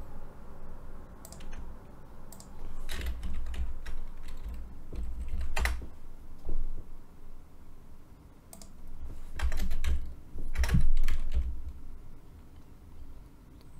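Typing on a computer keyboard in short bursts of keystrokes separated by pauses, with the busiest, loudest run about two-thirds of the way through.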